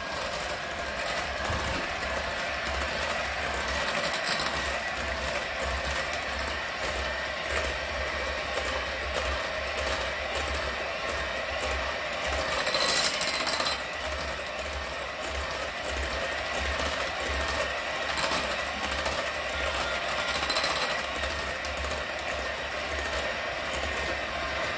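Electric hand mixer running steadily, its beaters whisking a thick cream mixture for a cheesecake in a ceramic bowl, with a few brief louder spells, the loudest about halfway through.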